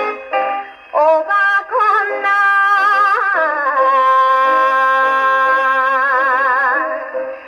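A 78 rpm record playing on a Columbia Model 116 phonograph: a woman sings a Japanese popular song. From about four seconds in she holds one long note with a wide vibrato.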